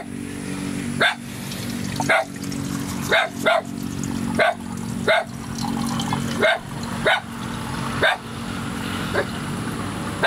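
A dog barking repeatedly, about ten short barks at roughly one a second.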